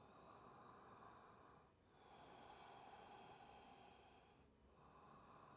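Near silence with faint, slow breathing: long, even breaths of about two and a half seconds each, with brief pauses between them.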